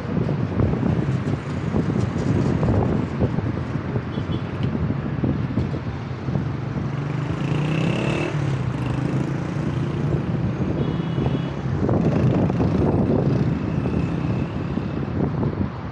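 Road traffic noise heard from a moving vehicle in slow city traffic: a steady engine hum over road and wind noise. The engine's pitch rises briefly about halfway through.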